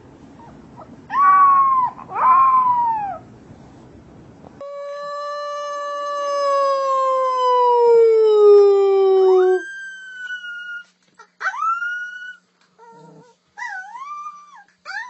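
Puppy howling: two short falling whines, then one long howl of about five seconds that slides slowly down in pitch, followed by several short rising whimpers and yips.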